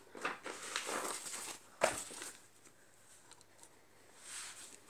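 Notebook paper rustling as a page is turned by hand, with one sharp crisp snap about two seconds in and a softer rustle near the end.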